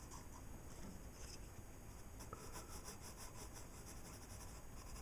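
Pencil scratching on paper in short strokes, faint, with a quicker run of strokes about halfway through.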